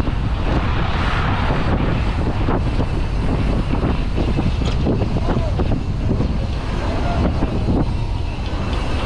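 Loud wind noise on a bicycle rider's camera microphone while riding, mixed with the noise of the surrounding road traffic.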